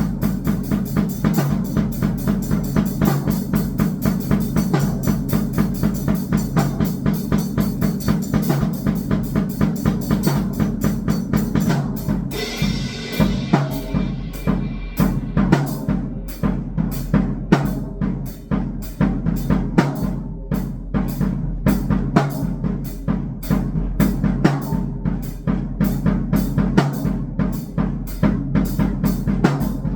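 Drum kit played in a fast, even rhythm over a steady low electronic drone. About twelve seconds in, a bright crash rings out and dies away over a couple of seconds.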